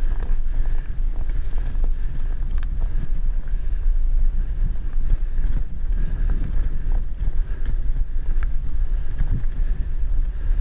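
Wind buffeting a helmet-mounted camera's microphone while riding a mountain bike down a trail: a steady low rumble, with scattered small clicks and rattles from the bike.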